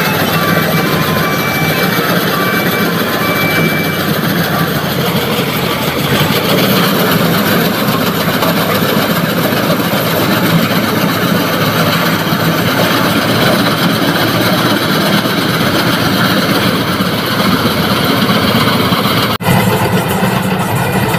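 Combine harvester's diesel engine running steadily with its machinery turning, as the harvester moves through a muddy field. The sound breaks off for a moment near the end.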